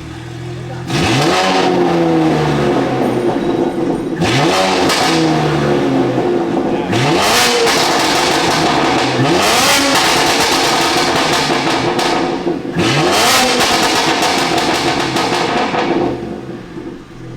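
BMW S58 twin-turbo inline-six in a G82 M4 under hard acceleration through the gears. The engine note climbs steeply and drops back at each upshift, about five times, then eases off near the end.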